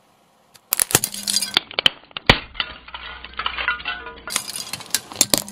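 Car tyre crushing a clear plastic container filled with jelly beans: the hard plastic cracks and crunches in a dense run of sharp snaps and clicks, starting just under a second in and loudest a little past two seconds in.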